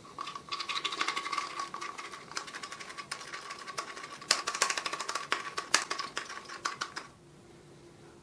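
Rapid, irregular clicking and scraping of a screwdriver worked in a small container of mixed epoxy resin, stopping about seven seconds in.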